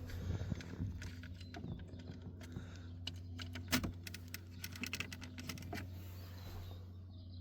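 Scattered plastic clicks and light knocks as the clips of the shifter console's top trim cover are released and the cover is worked loose, busiest in the middle, with one sharper snap. A steady low hum runs underneath.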